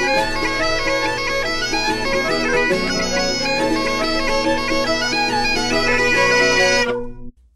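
Bagpipe music for a title sequence: a steady drone under a moving melody. It cuts off abruptly about seven seconds in.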